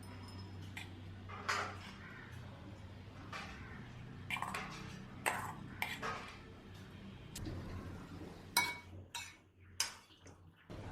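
Dishes and cutlery clinking and knocking together in a series of separate sharp knocks, over a low steady hum that fades out near the end.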